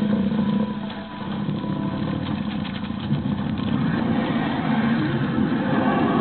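A vehicle running steadily, a continuous low noise with a couple of faint steady tones that fade out about a second in.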